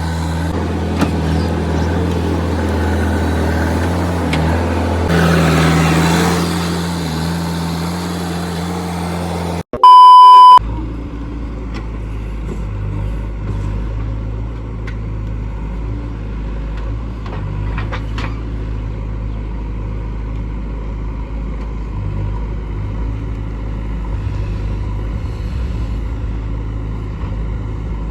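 Diesel engine of a JCB 3DX backhoe loader running steadily, its note swelling briefly about five seconds in. Near the ten-second mark the sound cuts off and a loud, pure beep of under a second plays. Then a diesel engine runs on steadily at a lower, deeper note.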